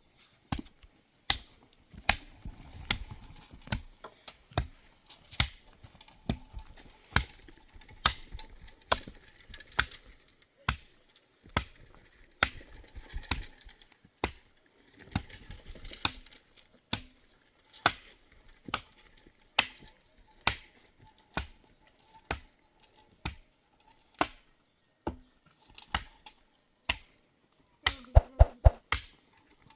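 Repeated sharp knocks or chopping strikes, irregular at about one or two a second, with a quick run of several strikes near the end.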